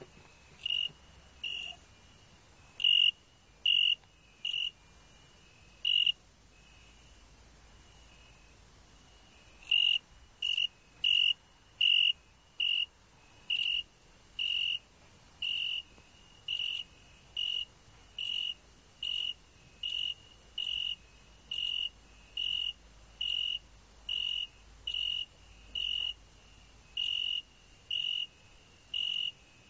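Cricket chirping: short, high chirps, a few irregular ones at first, then after a pause of a few seconds a steady run of a little more than one chirp a second.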